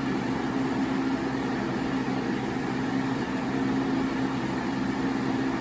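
Lasko B20540 Power Plus 20-inch box fan running on medium speed: a steady rush of air over the even hum of its eight-pole motor.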